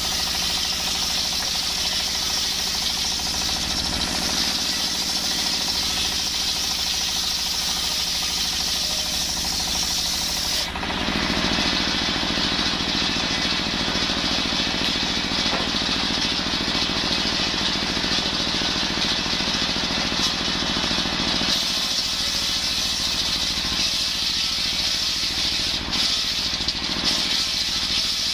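A table circular saw ripping coconut-wood planks, driven by a stationary single-cylinder diesel engine running with a fast, steady pulse under the whine of the blade. About ten seconds in the sound turns heavier and lower for about ten seconds, then shifts back.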